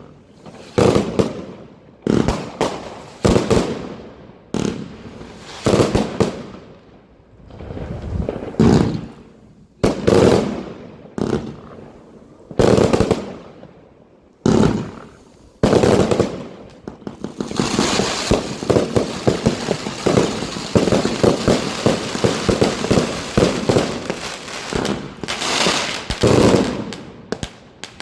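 Pyrocentury Feuer Frei 288-shot, 25 mm compound firework cake firing: loud single shots and bursts about every one to two seconds, then, after about two-thirds of the way, a dense rapid barrage of many shots a second that dies away near the end.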